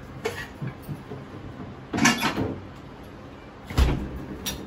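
Handling noises on a kitchen counter: a short clatter about two seconds in, then a dull thump and a sharp click near the end.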